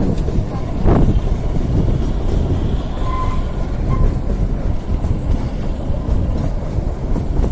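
Kalka–Shimla narrow-gauge toy train running with a steady low rumble, a brief high tone sounding about three seconds in.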